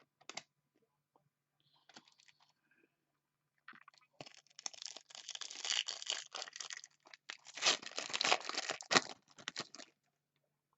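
Trading card pack wrapper and cards being handled: a few light clicks, then dense crinkling and tearing from about four seconds in, with a brief pause just after halfway.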